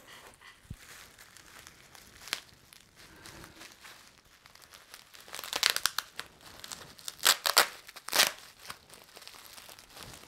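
Plastic wrapping crinkling and rustling as a toy is unwrapped by hand, with louder crackling bursts about halfway through and twice more later on.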